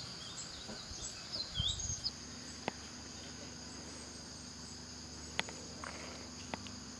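Steady, high-pitched drone of insects, with a few short chirps in the first two seconds and a few faint clicks after that.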